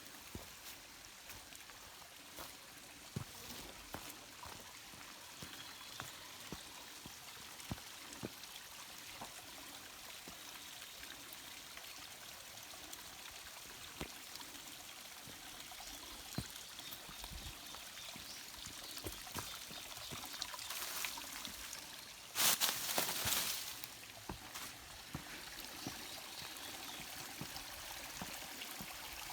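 Mountain stream running steadily over rocks. About three-quarters of the way through, a louder rush of noise lasts a second or so.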